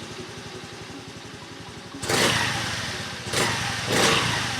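2022 Honda Navi's small single-cylinder engine idling steadily, then revved in short throttle blips from about two seconds in, three times. It runs normally with a freshly installed clutch, contra spring and variator.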